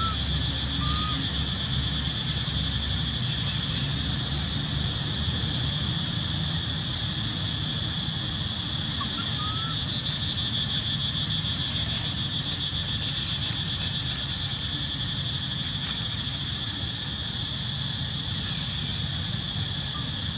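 Steady buzzing chorus of insects, with a constant low rumble underneath. A few brief high chirps come near the start and again about nine seconds in.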